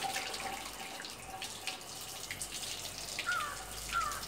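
Water splashing and spattering down into a bucket of wet chicken feathers as a plucked chicken is rinsed. Two short falling squeaks are heard near the end.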